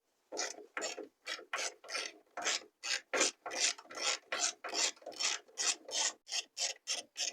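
Hand ratchet wrench clicking through about twenty short back-and-forth strokes, about three a second and quickening near the end, running a hinge bolt in.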